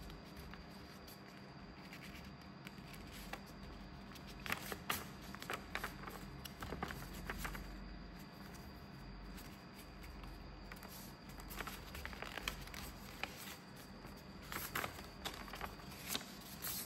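A sheet of A5 paper being folded and creased by hand for a paper airplane: faint rustling and crackling of the paper in scattered short bursts, over a steady low hum.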